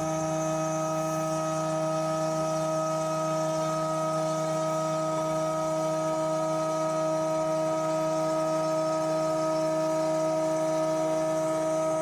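DMC2 Mini desktop CNC mill's end mill cutting a grade 6 titanium test piece under mist coolant: a steady whine at one pitch with a stack of overtones.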